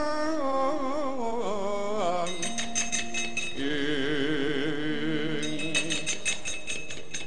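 Javanese gamelan accompanying a wayang kulit show: a wavering sung line falls in pitch over the first two seconds, then held metallophone tones with another wavering melodic line. From about five and a half seconds in comes a fast clatter of the dalang's keprak plates and cempala knocks.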